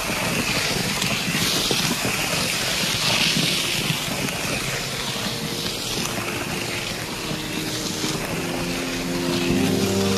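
Forced-action pan mixer churning a batch of resin-coated gravel: a steady rattling hiss of stones scraping round the pan. A few held musical notes come in faintly near the end.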